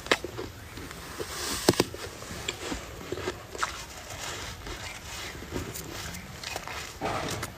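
Fresh snow scraped up by hand and bitten, crunching between the teeth: scattered sharp crunches and scraping, with a longer rough scrape near the end as the hand digs into the snow again.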